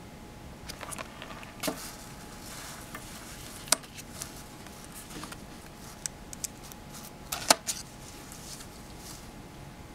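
Scattered small clicks and taps from handling a metal alligator clip, a small disc magnet and a foil coil on paper, with a sharp click near the middle and a quick cluster of clicks a little later.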